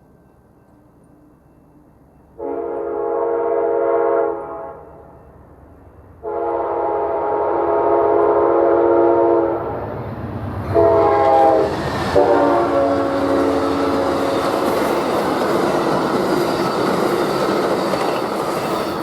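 Diesel locomotive air horn sounding the grade-crossing signal: two long blasts, a short one, and a final long one. Under the last blasts the train passes, with a loud steady rush of wheels on rail.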